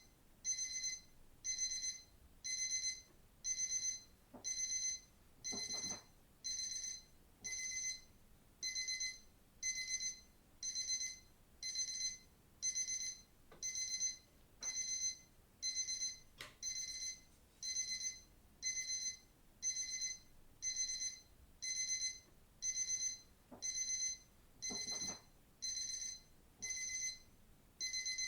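Digital watch alarm beeping: short bursts of high-pitched electronic beeps repeating steadily, about one burst a second.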